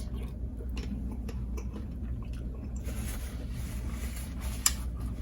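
Close-miked chewing of a mouthful of crispy chapati flatbread with egusi soup: a run of small wet mouth clicks, with one sharper click near the end.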